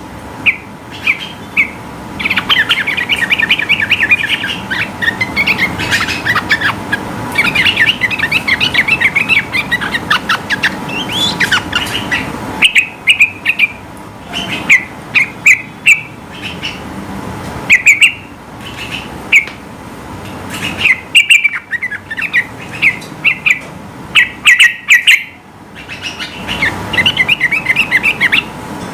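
Yellow-vented bulbul (trucukan) singing: long runs of rapid chattering notes broken by loud, separate sharp whistled notes, in the fast continuous 'ropel' style.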